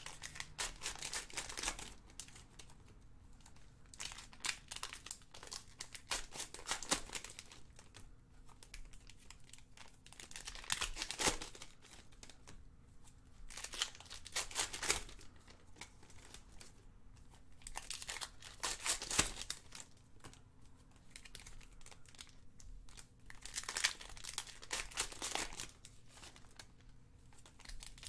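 Plastic trading-card pack wrappers being crinkled and torn open by hand, with cards handled between them. It comes in bursts of crackling every few seconds.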